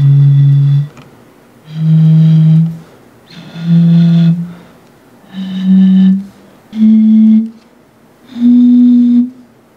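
Blowing across the mouths of plastic soda bottles partly filled with water, a bottle flute: one breathy, organ-like hoot per bottle, six held notes that climb step by step up a scale. The pitch rises with the water level, because each bottle holds less air.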